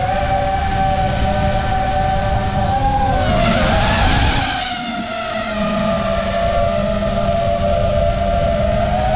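FPV racing quadcopter's motors and propellers whining steadily, the pitch wandering with the throttle. About three to four seconds in it swells into a louder rush, the pitch rising and then dropping, before settling back to a steady whine over a low rumble.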